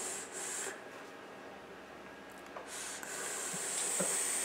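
Air hissing through an electronic vape's atomizer as it is drawn on. Two short hisses come at the start, then a longer draw of about two seconds begins a little past halfway.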